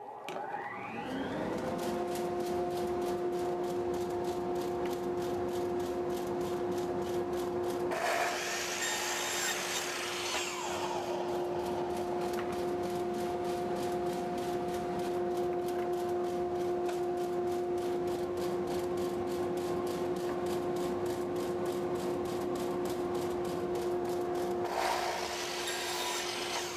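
A dust collector spins up with a rising whine and runs with a steady hum. Over it a miter saw cuts pine crown molding twice: one cut about eight seconds in, its blade winding down afterwards with a falling pitch, and another near the end.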